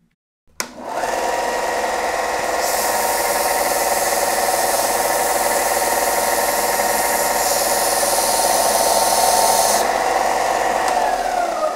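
Benchtop belt sander switched on about half a second in, its motor and belt running steadily. From about 2.5 s to 10 s a rubber abrasive cleaning stick is pressed against the moving sanding belt, adding a hiss as it scrubs residue off the moderately dirty belt. Near the end the sander is switched off and its pitch falls as it winds down.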